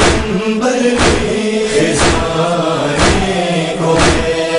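Male chorus voices chanting a long, held note of a Urdu nauha (Shia lament), over a steady heavy beat about once a second in the style of matam chest-beating.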